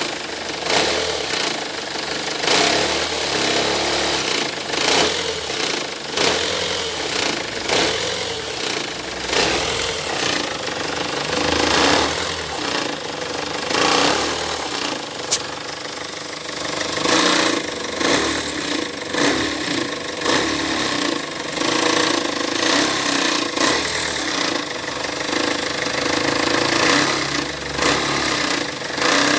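Peugeot Partner HDi diesel engine running with a continuous clattering knock: the abnormal engine noise that is being diagnosed.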